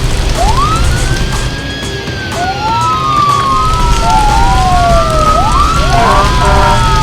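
Several emergency-vehicle sirens wailing in slow, overlapping rising and falling sweeps, with a faster-sweeping siren joining near the end, over a steady low rumble.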